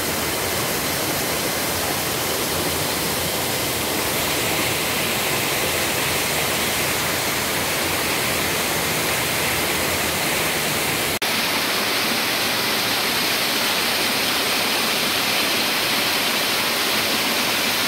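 Loud, steady rush of fast-flowing stream water. It drops out for an instant about eleven seconds in, then carries on with a slightly brighter hiss.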